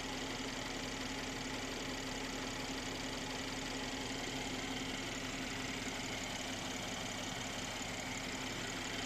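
Mercedes-AMG C43 engine idling steadily, with a light clacking that is normal for it and no rattle: a healthy engine.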